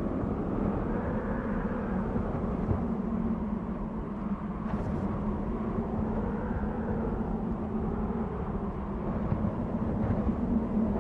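Desert wind blowing steadily, with a constant low moan and gusts that slowly rise and fall in pitch.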